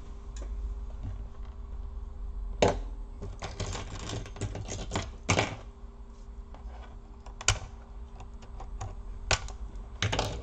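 Irregular clicks and light knocks of hands and tools on a laptop's plastic casing and parts during disassembly, with a few louder knocks scattered through.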